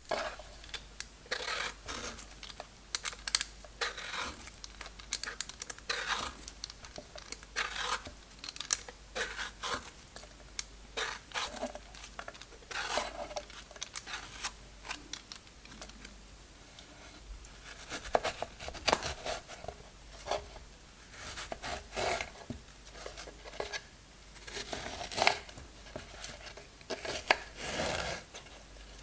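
A raw pear being peeled with a vegetable peeler, the blade scraping off strips of skin in repeated short strokes. Near the end a knife slices through the peeled pear onto a wooden cutting board.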